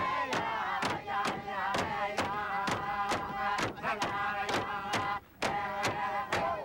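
Frame drums struck with a stick in a steady beat of about three strokes a second, under group chanting in a drum-dance song. The singing and drumming break off briefly about five seconds in.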